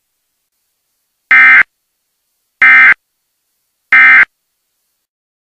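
Emergency Alert System end-of-message (EOM) code: three short, identical bursts of buzzing digital data tones, about 1.3 seconds apart. These bursts mark the end of the spoken alert.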